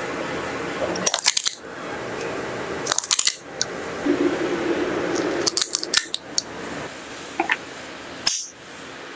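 Glass cups clinking as they are handled on a metal tray and filled with ice cream: several short clusters of sharp clicks over a steady hiss, with a last single clink near the end.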